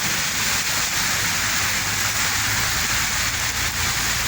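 Steady hiss of heavy rain falling and hitting surfaces.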